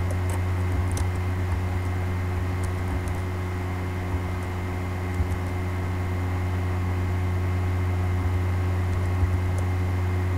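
Steady electrical hum from the recording setup: a strong low drone with a few fixed higher tones over faint hiss. A few faint, scattered clicks of computer keys are pressed as menu choices and seat numbers are entered.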